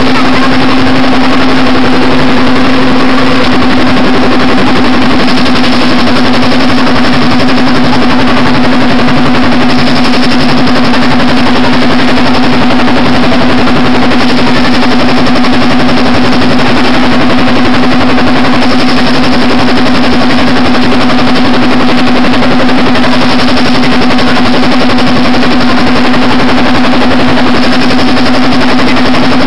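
MC5 soap stamping machine running: loud, steady machine noise with a constant hum.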